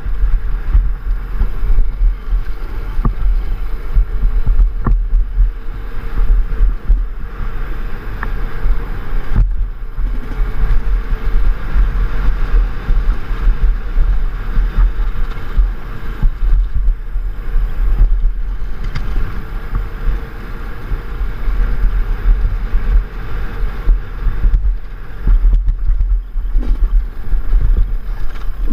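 Enduro dirt bike engine running through rough off-road terrain, heard from a rider-mounted GoPro, with heavy wind rumble on the microphone and scattered knocks from the bike and rider jolting over the ground.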